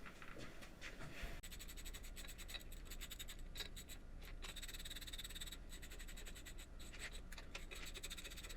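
Faint light metallic ticking and scraping as lubed washers and nuts are spun by hand down the cylinder-head studs, with a faint low hum joining about a second in.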